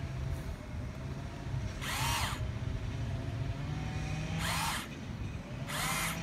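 The small electric gear motors of a Mostop 3-in-1 Volvo RC excavator whine in three short bursts as it drives its arm and tracks, each burst rising and falling in pitch, over a steady low hum.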